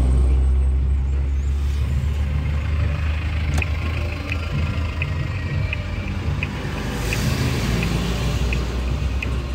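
A motor vehicle's engine running with a heavy low rumble. From a few seconds in, a quick regular ticking comes in, about two ticks a second.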